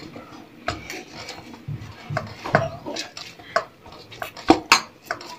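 Irregular clinks and light knocks of a bowl and utensils while paratha dough, with ghee just worked in, is mixed.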